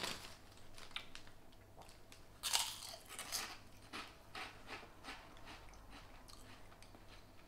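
Someone biting into a krupuk (prawn cracker) and chewing it. The loudest crunch comes about two and a half seconds in, followed by a string of softer crunches.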